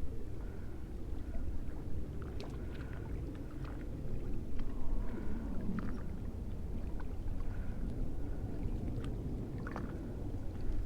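Wind buffeting the microphone as a steady low rumble, with faint scattered ticks and clicks over it.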